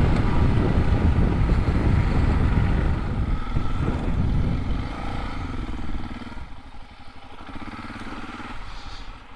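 Suzuki DR650's single-cylinder four-stroke engine running as the bike rides along. It drops off after about three seconds as the bike slows, and is much quieter and lower from about six seconds in.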